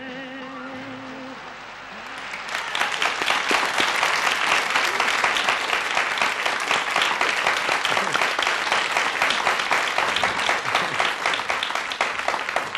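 The last held sung note of a ballad with orchestra fades, and about two seconds in an audience breaks into loud, sustained applause.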